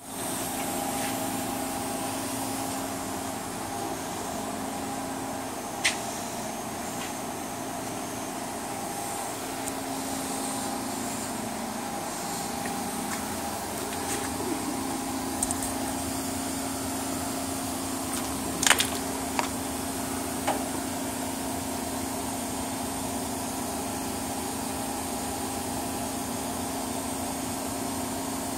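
Steady hum of running workshop machinery with a constant low tone, broken by a few short sharp clicks: one about six seconds in and three close together about two thirds of the way through.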